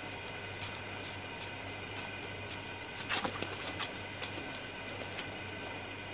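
Veal ossobuco in tomato sauce simmering in a pan: soft bubbling pops and ticks, a few louder ones about three seconds in, over a steady low hum.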